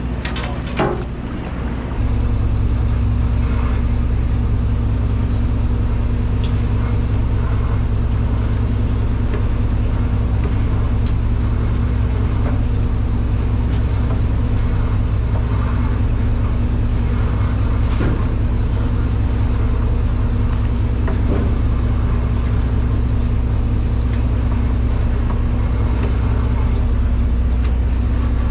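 Party boat's engine running with a steady low drone that gets louder about two seconds in, with a few light knocks over it.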